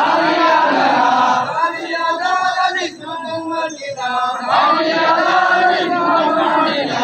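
A large crowd of villagers chanting loudly in unison, in repeated phrases, with a brief lull about three seconds in before the voices rise again.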